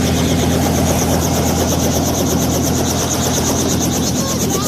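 Helicopter engine and rotor running steadily: a low hum under a high whine that starts pulsing rapidly after the first second or so.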